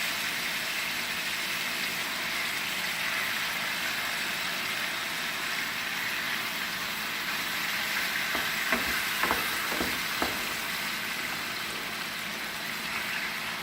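Chicken strips frying in hot oil in a pan, a steady sizzle, with a few short light knocks about eight to ten seconds in.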